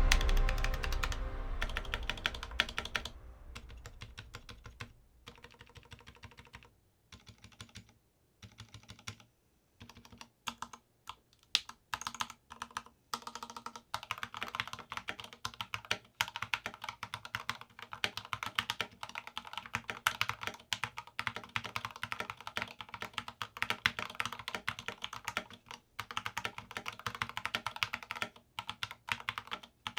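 Typing sound test on a custom Drop CTRL mechanical keyboard fitted with Everglide, Kailh Red and Gateron Red switches and no case foam. Background music fades out over the first few seconds, scattered keystrokes start about seven seconds in, and from about halfway through it turns into steady fast typing. The builder finds it clanky where the Kailh Reds sit and good on the Everglides.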